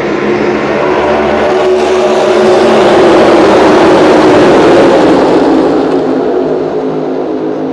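A pack of NASCAR Cup Series race cars with V8 engines passes at speed. The many engines build to a loud peak in the middle and fade as the field goes by.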